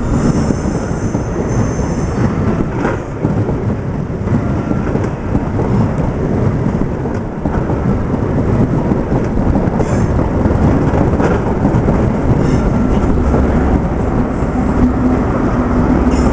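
A High Speed Train (InterCity 125) passing on a curve, its Mark 3 coaches running by with a continuous loud rumble and brief high-pitched wheel squeals now and then. A steady low engine drone comes in during the last few seconds as the rear diesel power car approaches.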